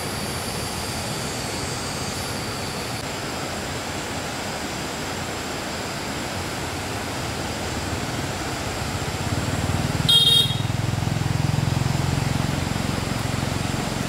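A motor vehicle's engine rumble grows louder from about eight seconds in, over steady background noise. A short high-pitched beep sounds about ten seconds in.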